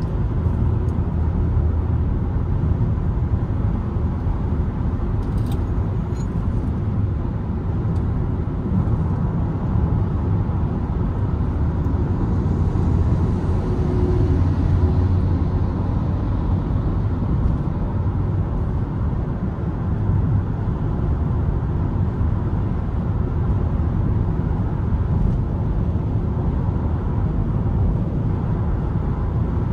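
Steady in-cabin road noise of a 2023 Mitsubishi Xpander cruising on a highway: low engine and tyre rumble heard from inside the car, swelling slightly about halfway through as a bus passes alongside.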